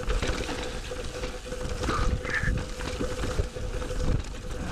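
Mountain bike rolling over rocky singletrack: tyres on rock, the bike rattling and knocking over ledges, with wind rumbling on the camera microphone. A faint steady whine runs throughout, and a couple of short squeaks come about two seconds in.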